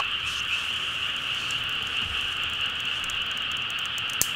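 A dense, steady chorus of frogs calling at night, with one sharp click near the end.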